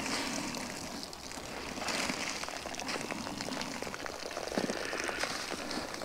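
Wet, soapy T-shirt being wrung out by hand, water dripping and splashing into a plastic washing tub in a patter of irregular drops.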